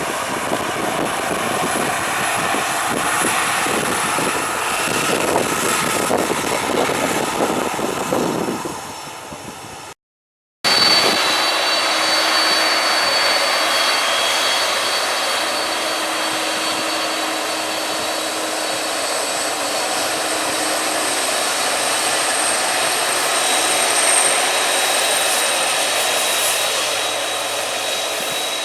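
Jet engines of a Boeing twin-jet airliner: a loud rumbling roar that fades away about eight seconds in, then, after a short break, a steady whine with high steady tones over the rush of the engines.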